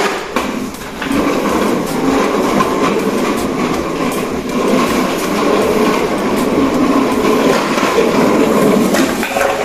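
Hard plastic wheels of a child's swing car rolling over a concrete floor: a steady rumble that starts about a second in and holds until near the end.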